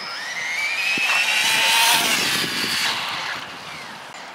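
Brushless electric RC cars at full throttle on a drag run, the motors' high whine rising in pitch as they accelerate. It is loudest about two seconds in as they pass, then fades.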